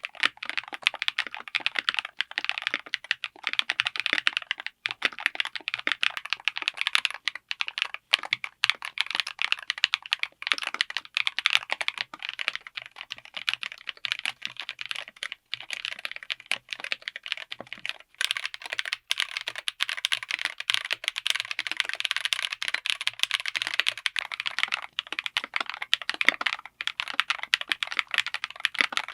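Fast, continuous typing on a mechanical keyboard fitted with linear switches: a dense stream of keystroke clacks. About eighteen seconds in there is a brief break, and after it the keystrokes sound brighter.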